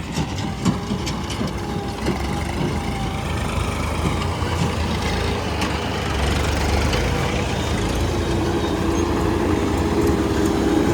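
Heavy vehicle's diesel engine running steadily, growing a little louder about six seconds in.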